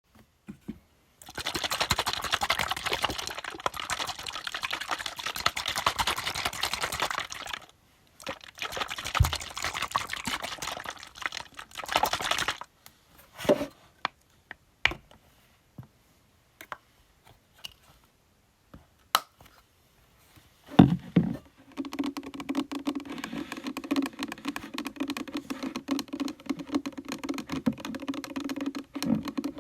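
Fingernails tapping and scratching on makeup cosmetic packaging: two long runs of fast, dense clicking, a stretch of scattered single taps, then continuous scratching with a low steady note underneath from about two-thirds of the way in.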